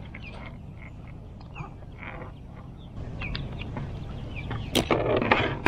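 Scattered short bird chirps over a low rumble, with a louder burst of rustling and rattling near the end as a small largemouth bass is handled and worked off the hook with pliers.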